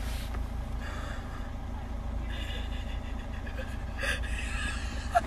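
A steady low rumble with faint, indistinct voices in the background.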